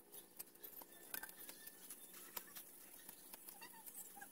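Faint, scattered light clicks and taps of steel motorcycle sprockets, threaded rods and bolts knocking together as they are handled and fitted by hand.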